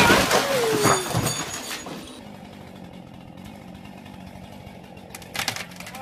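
A loud crash as a cut tree limb comes down onto a wooden patio roof, breaking through it, with clattering debris that dies away over about two seconds. A low steady hum follows.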